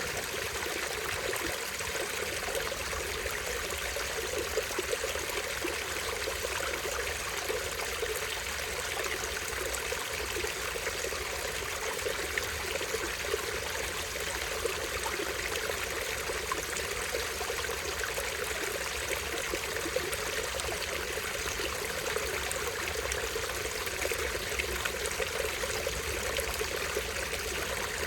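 Small stream running and splashing steadily over a low drop, an even rush of water with no breaks.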